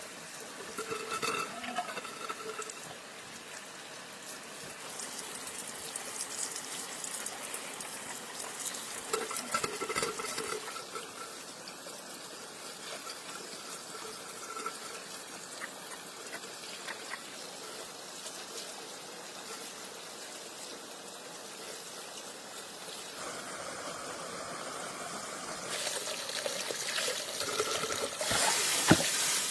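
Water trickling and pouring, with scattered small clicks and knocks, swelling into a louder gushing hiss near the end.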